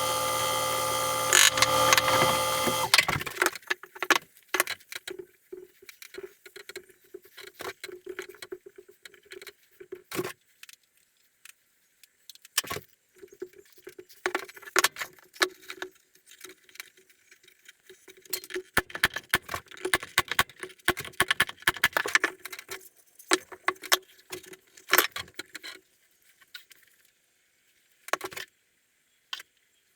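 A power tool runs with a steady, many-toned hum and stops abruptly about three seconds in. Then come scattered knocks, clatter and scraping of wood and tools being handled at a workbench.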